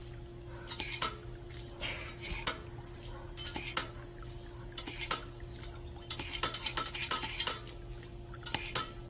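Water spurting from a paw-pedal dog water fountain and splashing as a dog laps and snaps at the jet: a continuous run of wet clicks and splatters over a faint steady hum.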